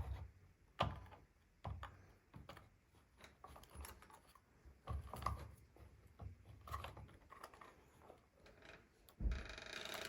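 Scattered small clicks and knocks from the parts of an electronic keypad deadbolt being handled while its wiring cable connector is plugged in, with a short flurry of handling noise near the end.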